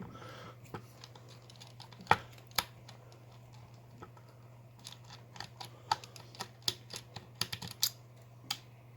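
Small metal clicks and taps of tools and lock parts being handled while a padlock is taken apart: a couple of sharper clicks about two seconds in, then a quicker run of small clicks from about five seconds, over a faint steady hum.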